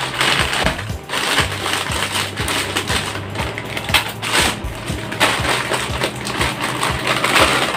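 Plastic snack packet crinkling as it is cut open, then yellow corn puffs pouring and rattling out of it. Background music runs underneath.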